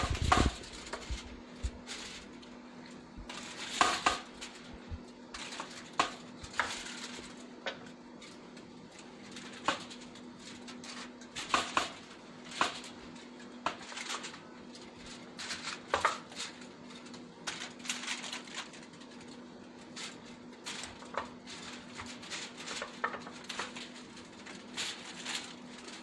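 Kitchenware being handled: irregular clinks and knocks of dishes and a pan, scattered through the whole stretch, over a steady low hum.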